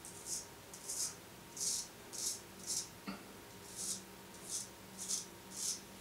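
Dovo 5/8 straight razor scraping through lathered stubble in short strokes, about two a second, each a brief crisp rasp; quite a nice sound.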